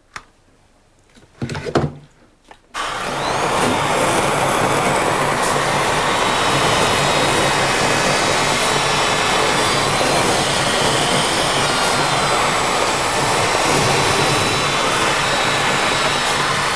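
After a few short sounds, an electric hand planer starts about three seconds in and runs loud and steady while planing a frozen salmon clamped in a vise.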